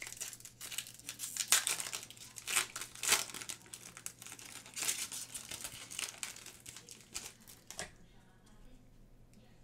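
Trading card pack's wrapper being torn open and crinkled by hand: a run of sharp crackles and rustles that stops about eight seconds in.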